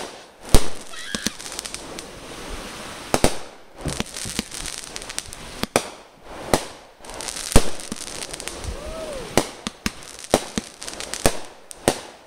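Aerial fireworks bursting overhead: a dozen or so sharp bangs at uneven intervals, with a steady crackling hiss between them.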